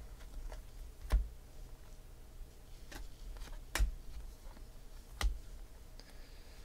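A stack of glossy baseball cards being flipped through by hand, each card slid off the stack with a sharp click or snap. Four louder clicks come at uneven intervals, with fainter card ticks between them.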